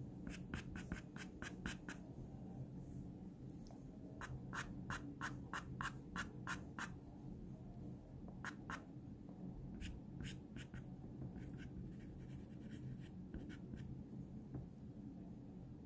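Pastel pencil scratching on pastel paper in quick short strokes, several a second, coming in bursts with pauses between, as fur is hatched in.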